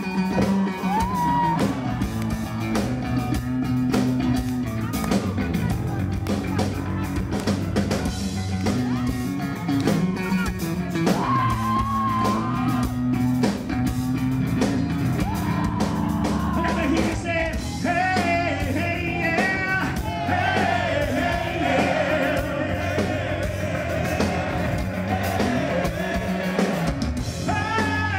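Live hard rock band playing: electric bass, electric guitar and drums, with singing and yells.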